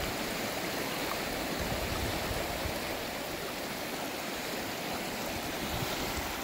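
Kenai River running fast and shallow over gravel: a steady rush of flowing water.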